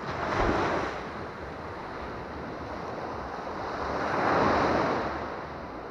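Small waves breaking and washing up a sandy Baltic Sea beach at the water's edge. One wave washes in just after the start, and a louder one breaks about four seconds in.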